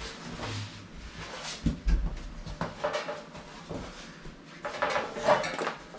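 Rustling, shuffling and knocks of a person moving about and climbing out of a stripped car body shell, with a dull thump about two seconds in and a clatter of handled items near the end.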